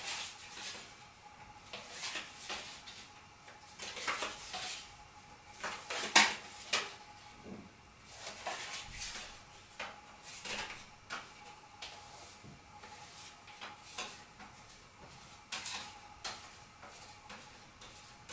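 Playing cards being handled and set onto a house of cards: irregular soft clicks, taps and rustles of card stock, the sharpest about six seconds in.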